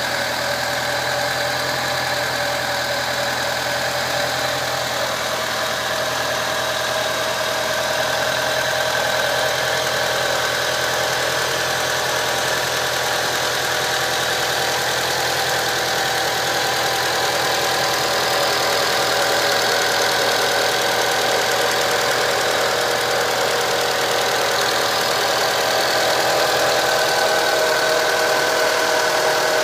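Engine idling steadily with a whine over it, running unevenly as if one cylinder intermittently misfires.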